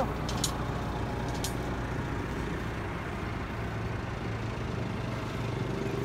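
An engine running steadily with a low drone, with a few light clicks about half a second and a second and a half in.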